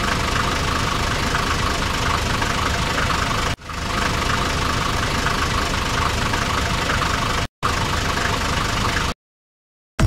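Tractor engine running steadily at idle. The sound cuts off and restarts twice, then stops about nine seconds in.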